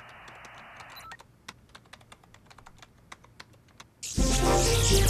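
The hiss of a dial-up modem's connection stops about a second in, followed by laptop keys clicking in quick, irregular typing. About a second before the end, loud music starts abruptly.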